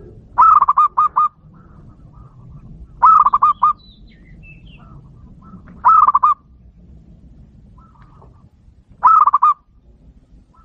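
Zebra dove (perkutut) cooing: four short phrases of quick staccato coos, repeated about every three seconds. This is the call that bird catchers play to lure wild zebra doves.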